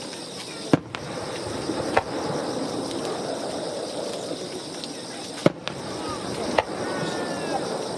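Aerial fireworks bursting in a starmine display: four sharp bangs, the loudest just under a second in and at about five and a half seconds. Under them runs a steady murmur of crowd chatter and a high insect trill.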